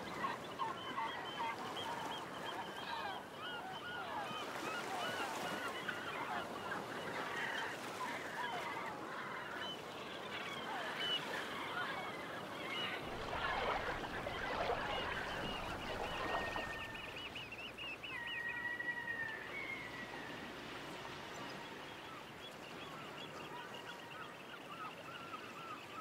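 A large flock of waterbirds calling over one another in a dense, continuous chatter, with a few clear whistled calls standing out about two-thirds of the way through.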